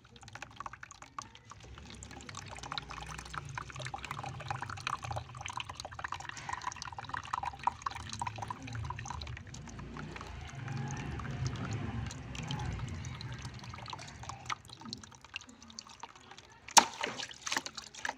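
Water squirting in thin jets from pinholes in a green water balloon and splashing into a tub of water. Near the end the balloon bursts with one loud, sharp pop, followed by a few smaller splashes.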